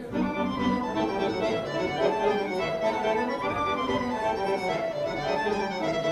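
Accordion-led Serbian folk dance music playing a kolo tune from the Negotin region.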